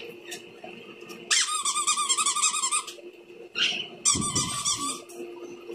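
A dog whining in two long, high-pitched, wavering cries, the first about a second and a half long and the second about a second long. A low thump comes as the second cry begins.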